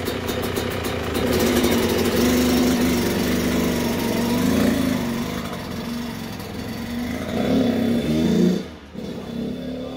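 Kawasaki KX100 two-stroke single-cylinder dirt bike engine running and revving, its pitch rising and falling, as the freshly assembled bike rides off. The sound drops away sharply a little before the end.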